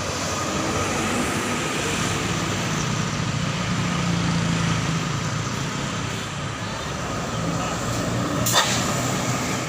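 Large bus's diesel engine running as it passes by, louder in the middle. A single sharp click comes about eight and a half seconds in.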